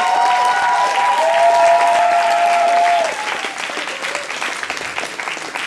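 Theatre audience applauding, with a few voices holding long cheering calls over the clapping for about the first three seconds; after that the applause carries on more softly.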